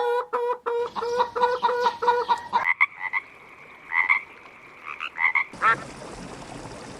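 Frogs croaking: a rapid series of evenly spaced, pitched croaks, about three a second, for the first couple of seconds. Higher-pitched calls follow in short clusters. About five and a half seconds in, the recording changes and a short call is heard, like the duck quacking that follows.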